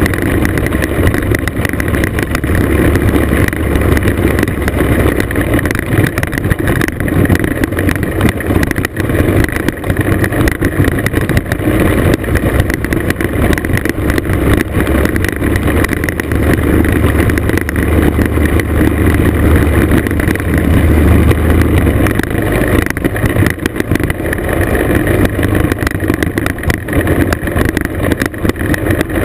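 Classic two-stroke scooter engine running steadily under way, heard from on board, with tyre noise from a loose gravel road mixed in.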